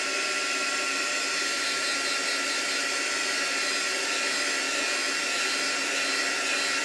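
Handheld electric dryer blowing steadily, drying freshly applied watercolour pencil on a paper page.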